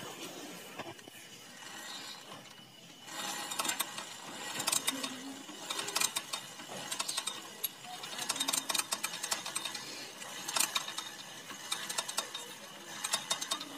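Old Honda Supra motorcycle engine, with its cylinder head removed, being kicked over again and again with the kick-starter. The repeated ratcheting clicks and gear rattle start about three seconds in. The engine is being turned to drive the oil pump and test whether oil reaches the cylinder-head passage.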